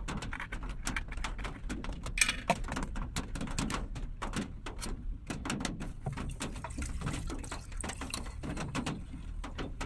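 Rain falling on an uninsulated car roof: a dense, irregular patter of drops hitting the metal, with one louder tap about two seconds in.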